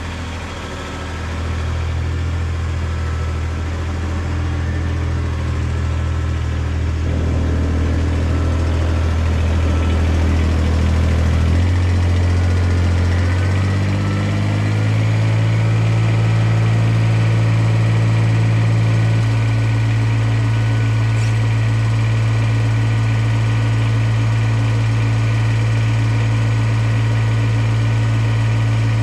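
Kubota BX1850 compact tractor's three-cylinder diesel engine running steadily. Its speed steps up about twelve seconds in and again about fifteen seconds in, then holds.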